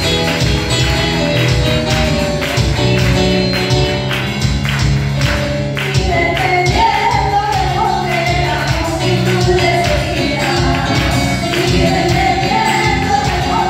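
Live church praise music: keyboard accompaniment with held bass notes and a steady beat, and women's voices singing into microphones that grow strong about six seconds in.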